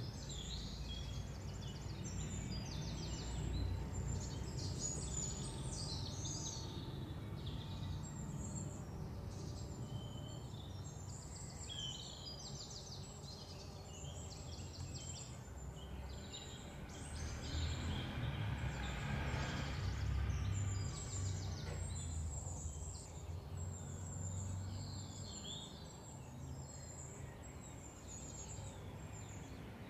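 Outdoor ambience: birds chirping and calling over a steady low rumble, which swells louder for a few seconds about two-thirds of the way through.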